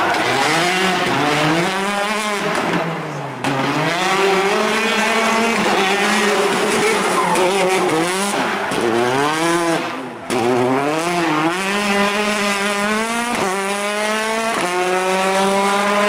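Peugeot 208 T16 R5 rally car's turbocharged four-cylinder engine revving hard and lifting off through the corners, its pitch rising and falling again and again. Near the end it climbs through a few quick upshifts, pitch dropping at each change.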